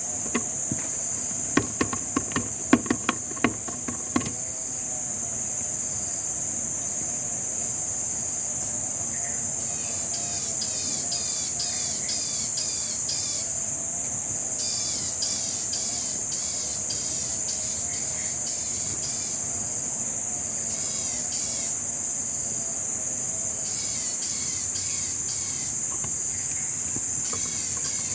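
Steady high-pitched drone of insects such as crickets or cicadas, with sharp clicks and rattles in the first four seconds from the squirrel struggling against the wire snare. From about ten seconds in, bursts of rapid, high chirping repeat every few seconds.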